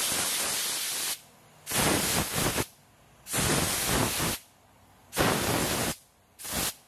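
Compressed-air blow gun blowing through a Kubota tractor's cylindrical air filter cartridge from the inside: a long hiss that cuts off about a second in, then four short blasts, the last the shortest.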